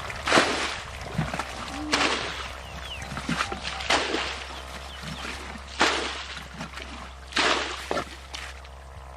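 Water splashing in repeated strokes, about five splashes spaced roughly a second and a half to two seconds apart.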